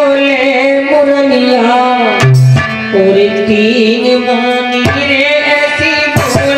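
Man singing a Hindi devotional bhajan through a microphone, his voice sliding between held notes over a steady held-note accompaniment and drum, with deep drum strokes about two seconds in and again near five seconds.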